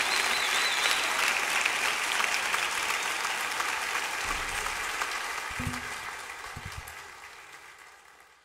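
Audience applauding in a large hall, with a high whistle near the start; the applause fades out over the last few seconds.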